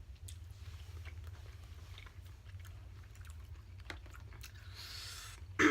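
Chewing, with scattered small clicks and cracks, as king crab legs are eaten, over a steady low hum. A short hiss comes about five seconds in.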